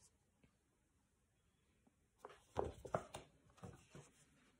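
A picture book's paper pages being handled and turned: a cluster of soft rustles and taps about two seconds in, lasting about two seconds.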